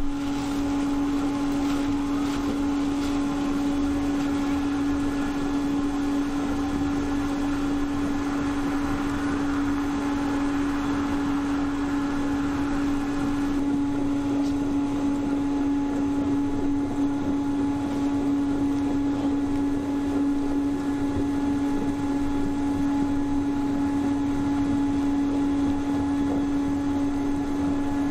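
Insulation blowing machine running with a steady motor hum as loose-fill insulation is blown through the hose. The higher hiss eases a little about halfway through.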